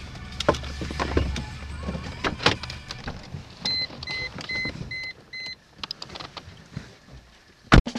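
Inside a stopped car, a low engine rumble dies away in the first second or so amid clicks and rustling. The car's warning chime then beeps five times, evenly, a little over two beeps a second. Near the end comes one loud thump, a car door shutting.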